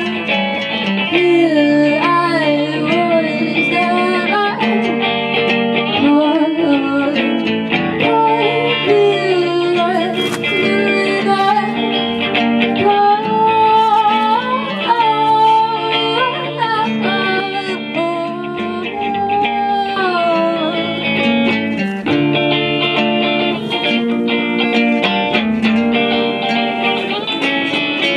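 Live band music led by guitars, playing continuously, with a lead melody line that slides and bends in pitch.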